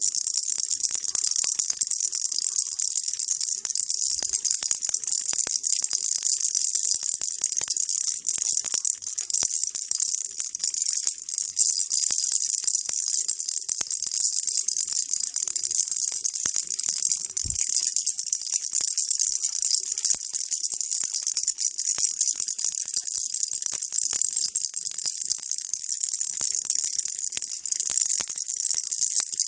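Baby rattle shaken without a break: a dense, steady, high-pitched rattling of many tiny clicks.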